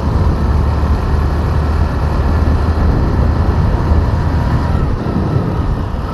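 Motorcycle cruising at a steady speed, its engine running under a steady low rumble of wind noise on the microphone.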